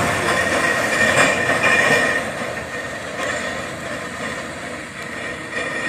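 Diesel engine of a heavy logging truck pulling uphill on a muddy dirt road, fading as the truck moves away, with a steady high whine over it.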